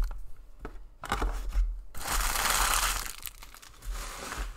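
Trading cards being handled with a few light clicks, then about two seconds in a crinkling rustle lasting about a second as a card pack wrapper is crumpled.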